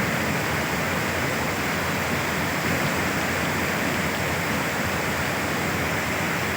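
Heavy rain pouring down in a steady, even rush of noise.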